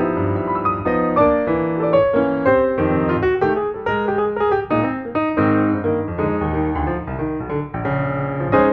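Background piano music: a melody of quick, evenly paced notes over lower held notes.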